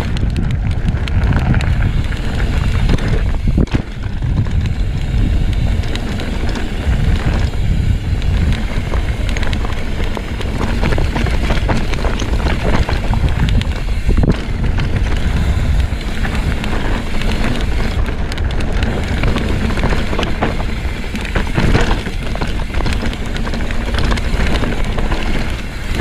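Mountain bike ridden fast down a rocky dirt trail, its tyres crunching over gravel and its frame and parts rattling with many knocks over bumps, under heavy wind rumble on the GoPro's microphone.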